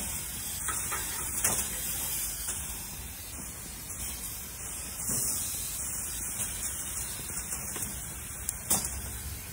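Ribeye steaks and meat skewers sizzling on a hot gas grill: a steady hiss, with a few clicks of metal tongs, the sharpest near the end.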